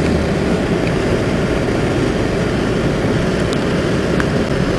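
A van driving on a snow-covered road, heard from inside the cabin: a steady low rumble of engine and tyre noise, with a couple of faint ticks near the end.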